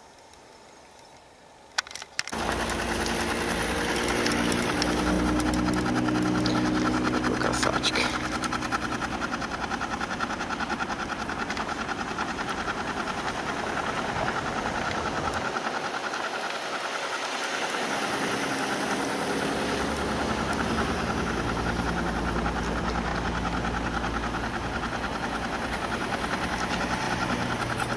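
An engine running steadily with a low hum, starting abruptly about two seconds in after near quiet; the lowest part of the hum fades briefly a little past the middle.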